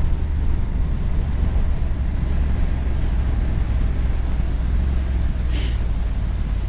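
Steady low rumble of a motorcycle on the move, heard from the rider's camera microphone, with a brief hiss about five and a half seconds in.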